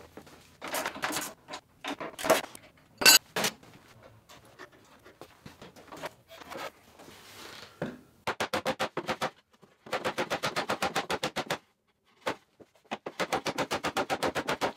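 A hand-held tool loosening the screws of a cabinet's stainless steel stovetop-and-sink top, heard as three bursts of fast, even clicking, about ten clicks a second. A few knocks and clatters come in the first seconds.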